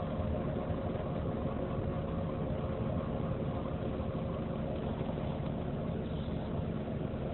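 A Ford Taurus's engine running steadily, heard from inside the car's cabin.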